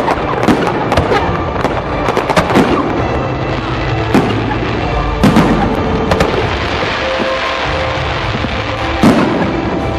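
Aerial fireworks display: dense rapid bangs and crackling shell bursts for the first few seconds, thinning to single booms, with a last loud one near the end. Music plays underneath.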